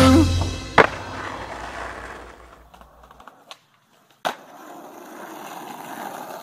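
Skateboard: a sharp clack of the board about a second in, then its wheels rolling on pavement and fading away. Another sharp clack comes a little past the middle, followed by the wheels rolling steadily.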